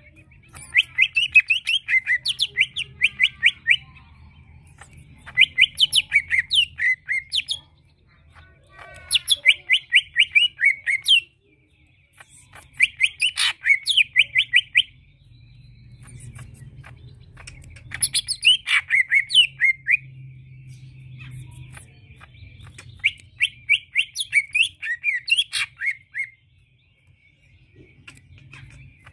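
A male greater green leafbird (cucak ijo) singing in a cage: repeated bouts of rapid, sharp, sweeping notes, about five a second, each bout lasting a second or three with short pauses between. This is the chattering full song used as a lure to set other leafbirds singing.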